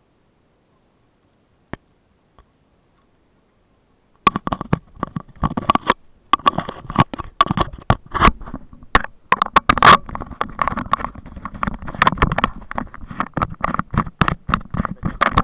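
Near silence with a couple of faint clicks, then from about four seconds in dense crackling, knocking and rumbling handling noise on a small action camera's microphone as it is handled and set on its tripod.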